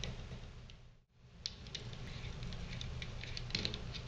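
Light, scattered clicks and scrapes of a small screwdriver working the screw terminals of a DIN-rail safety relay as a jumper wire is tightened in, with a brief dropout about a second in.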